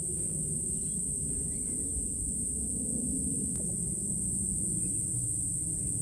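Outdoor ambience: a steady, high-pitched insect chorus that holds one pitch without a break, over a low steady rumble.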